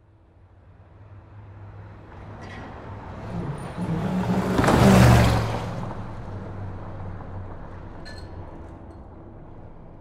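A car speeding past: engine and tyre noise builds to a loud peak about halfway through, then fades away slowly.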